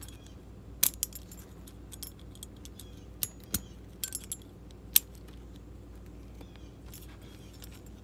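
Hog ring pliers crimping a steel hog ring closed around a bungee cord, with the stainless steel carabiner clinking against the metal: scattered sharp metallic clicks and jingles over the first five seconds, then quieter.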